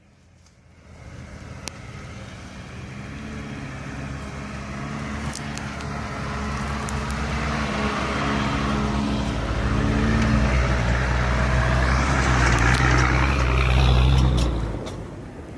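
Off-road 4x4 vehicle's engine approaching, growing steadily louder over about twelve seconds, then dropping away quickly near the end as it goes past.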